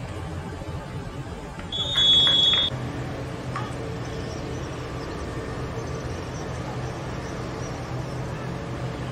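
Referee's whistle blown once, a single steady high blast of just under a second about two seconds in, marking the goal. A steady low background hum runs underneath.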